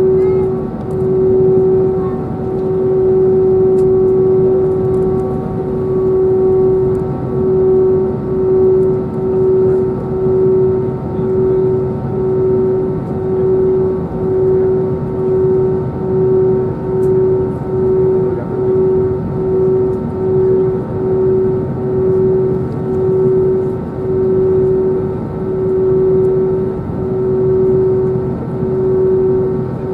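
Airbus A320neo's Pratt & Whitney PW1100G geared turbofan engines at taxi idle, heard inside the cabin: a steady hum over a broad rumble, the hum pulsing in and out about once a second, more slowly near the end.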